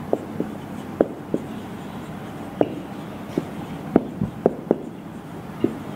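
Marker pen writing on a whiteboard: irregular short taps and ticks as the tip strikes and lifts off the board, about a dozen in a few seconds. A low steady hum runs underneath.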